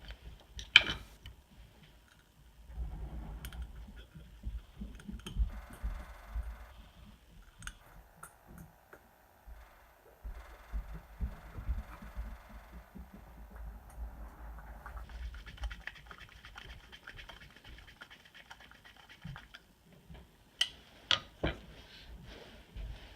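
Hands reassembling a snowmobile carburetor on a workbench. Small metal parts and tools click and tap, with low handling thumps. The sharpest click comes about a second in, and a few more come close together near the end.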